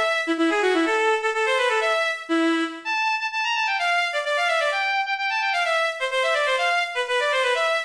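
A Panasonic KX-TG6611 cordless phone ringtone melody played on the Beatnik Player software synthesizer: a quick run of short synthesized notes, stepping down in pitch around the middle and climbing again after.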